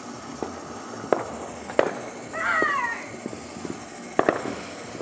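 Backyard consumer fireworks going off: scattered sharp firecracker bangs, including a close pair near the end. A brief high cry of a voice comes in the middle.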